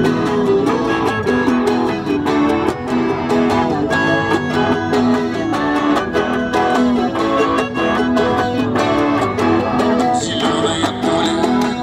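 A live band playing an instrumental intro: balalaika and electric guitars strumming a steady beat, with a melodica carrying the tune. A brighter high part joins near the end.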